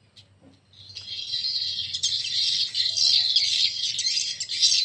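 A recording of dense swiftlet twittering, the 'Sejuta Koloni' roosting call used to keep swiftlets settled in a bird house, played through a horn tweeter. It starts about a second in and swells louder over the next two seconds as the volume is turned up.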